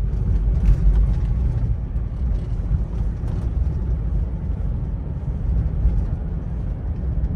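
Lexus GX470, freshly regeared to a 4.88 final drive, pulling away through the low gears. It is heard from inside the cabin as a steady low engine and road rumble with no gear whine standing out.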